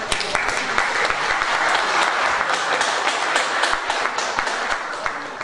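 Audience applauding: many hands clapping together, swelling at once and slowly thinning out near the end.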